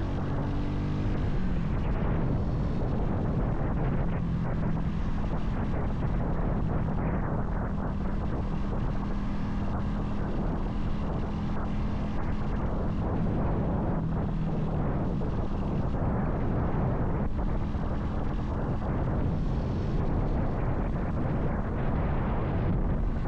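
Vitacci XMT 250 motorcycle engine running steadily under light acceleration from about 30 to 40 mph, with wind rushing over the microphone.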